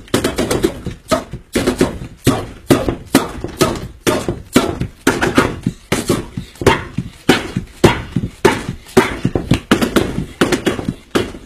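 Fists punching a wooden door over and over, in a fast, uneven run of sharp knocks, about three a second.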